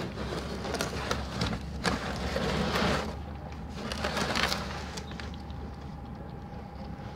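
Tabby mother cat and kittens lapping milk together from a small dish: a quick, irregular run of wet tongue clicks and licks, louder and busier about two and four seconds in.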